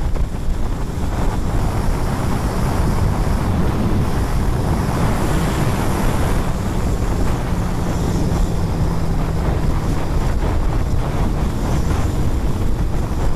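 Wind buffeting a helmet-mounted microphone on a motorcycle at road speed, with the bike's engine running steadily underneath.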